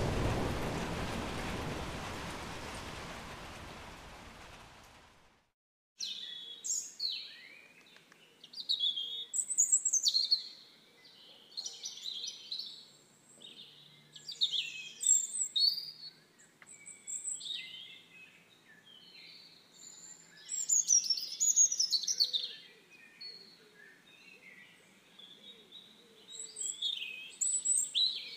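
A rushing noise fades away over the first five seconds. After a second of silence, songbirds chirp and sing on and off in short high phrases.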